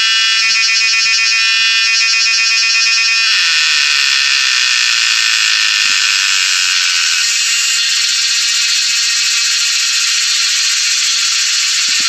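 Cicada singing: a loud, high, rapidly pulsed call in short repeated phrases that, about three seconds in, turns into a continuous shrill buzz.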